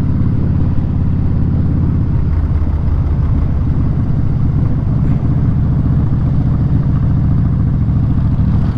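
Harley-Davidson V-twin motorcycle engine with Vance & Hines Short Shots exhaust running steadily under way, a deep continuous rumble of rapid firing pulses.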